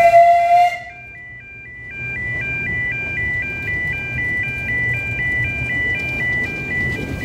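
Level crossing's E2S alarm sounder stepping through three high tones in a repeating warble, which the uploader calls dodgy. A steam locomotive's whistle blows over it at the start and cuts off about a second in. The narrow-gauge steam locomotive Britomart rumbles past underneath the alarm from about two seconds on.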